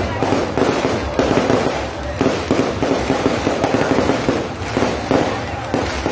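Fireworks going off in a rapid, continuous barrage of bangs and crackling pops.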